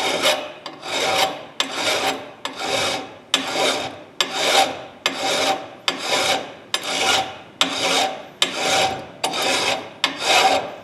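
Hand file rasping back and forth across the steel of a pair of locking pliers, in steady even strokes about one every three-quarters of a second, filing down rust pitting.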